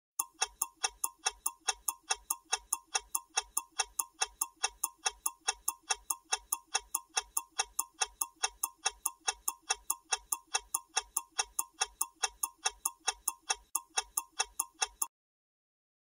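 Clock-ticking sound effect of a quiz countdown timer, about three even ticks a second, counting down the time to answer and cutting off suddenly when the timer reaches zero.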